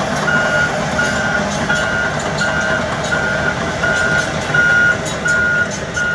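A tracked logging machine's reversing alarm beeping at one steady pitch, about one and a half beeps a second, over a diesel engine running, with faint clanks scattered through.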